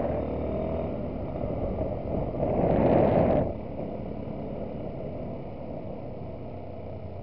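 Yamaha WR supermoto's single-cylinder engine running steadily while riding along a lane. About two and a half seconds in there is a louder rush of noise lasting about a second, then the engine settles back to a steady run.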